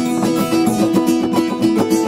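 Acoustic guitars playing an instrumental jam, with picked notes repeating steadily.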